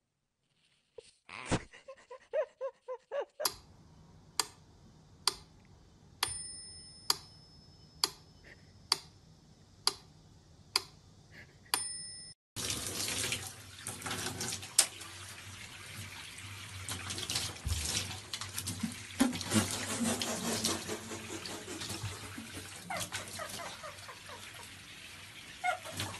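Sharp clicks about once a second with a couple of short high beeps. Then, about halfway through, a bathtub mixer tap runs, water pouring steadily into the tub.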